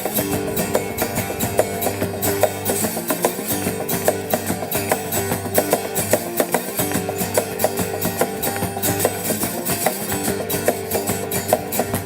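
A guitar strumming and picking a rock-blues riff over a steady drum beat, with no singing: an instrumental passage between verses.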